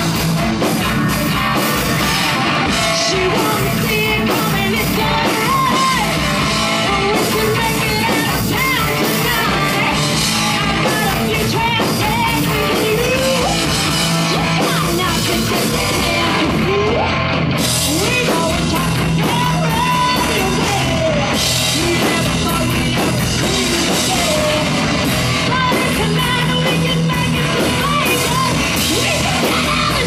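Live heavy metal band playing loud and steady: distorted electric guitars and a drum kit with cymbals, under a woman singing lead.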